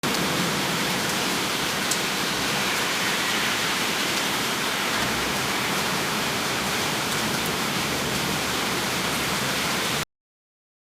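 Heavy rain: a dense, steady hiss of downpour that starts at once and cuts off suddenly after about ten seconds.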